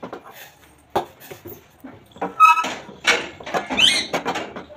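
A pet animal making several short, high-pitched calls in quick succession over the second half, some held on one note and some bending in pitch, with a sharp knock about a second in.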